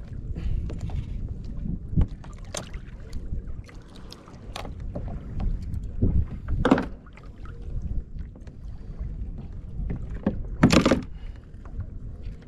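Water sloshing and slapping against a kayak's hull on a choppy sea, over a steady low rumble, with scattered small knocks and two louder knocks about six and eleven seconds in.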